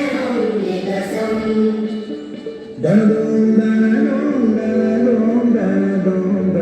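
A Hindi song plays over speakers, a singing voice over instrumental backing. About three seconds in, it steps up to a louder, fuller passage.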